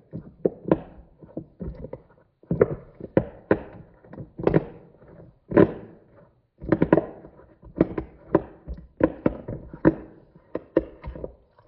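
Silicone pop-it fidget toys being pressed by hand, a quick uneven run of pops and taps, a few a second with short pauses.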